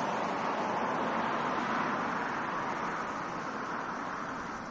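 Road traffic on a multi-lane street: cars passing, a steady rush of tyre and engine noise that slowly fades over the last two seconds.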